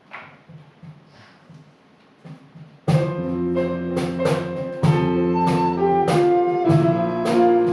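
A few faint soft shuffling noises, then about three seconds in an instrument starts playing the hymn's introduction: a steady succession of sustained chords.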